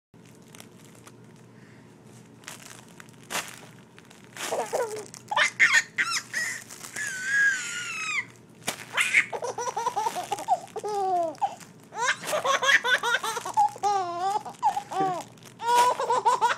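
Baby laughing in repeated bursts of high giggles and squeals from about four seconds in. Before that, faint crinkling clicks of a soft fabric crinkle block.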